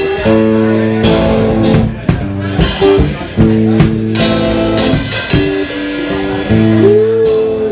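Live band playing: strummed electro-acoustic guitar chords over a drum kit.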